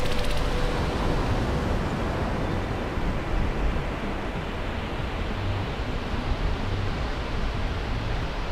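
Steady rushing noise of ocean surf breaking on a beach, with wind on the microphone.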